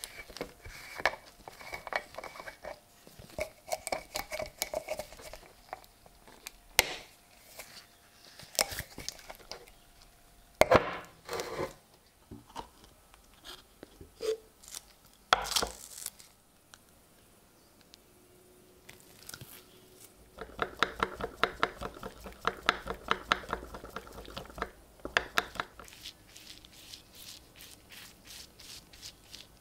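Hand work on a small metal pocket knife: scattered clicks, taps and scrapes, then a stretch of rapid back-and-forth scraping about twenty seconds in.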